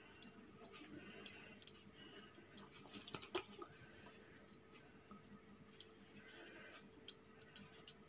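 Faint scattered clicks and light taps from hands placing chicken pieces onto a pizza in a pan, in small clusters about a second in, around three seconds in and near the end.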